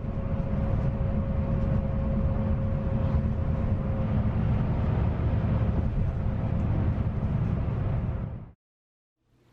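Steady low engine-and-road drone of a moving bus heard from inside, with a faint steady hum above it; it cuts in and out abruptly.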